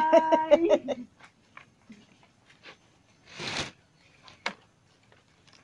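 A voice singing a few held notes for about the first second. Then light rustles and ticks of nipa palm leaves being handled and folded for pawid thatch, with one louder rustle about three and a half seconds in and a sharp click a second later.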